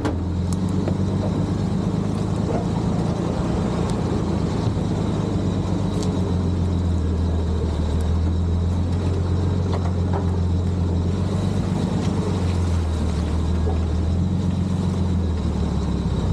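Dodge M37 truck's flathead six-cylinder engine running at low speed as the truck crawls along a dirt trail, its engine speed dipping and rising a little a few times.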